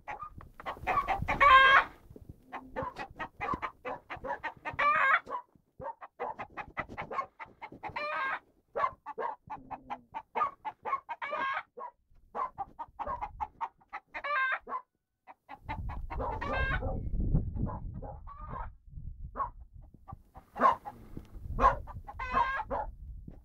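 Domestic chickens clucking in short, wavering calls that repeat every second or so. A low rumble runs for a couple of seconds about two-thirds of the way through.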